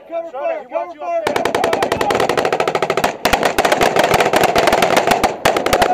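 A voice, then from about a second in, close, heavy automatic gunfire from several soldiers' rifles and machine guns: rapid overlapping shots with two brief pauses.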